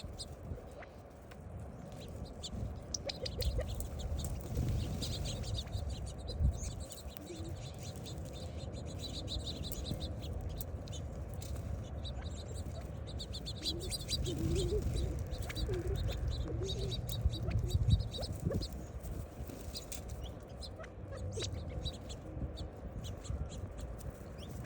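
A flock of small caged birds chirping and twittering in many short high calls, with low pigeon cooing about two-thirds of the way through and a low rumble underneath.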